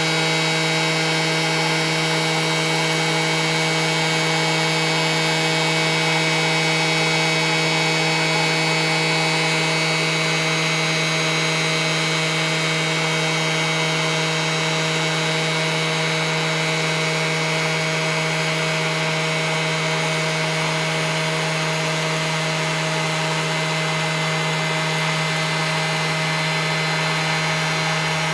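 Hershey's s'mores maker's electric fan running steadily with its heater on: a loud, even motor hum over a rush of blown air, making a lot of noise.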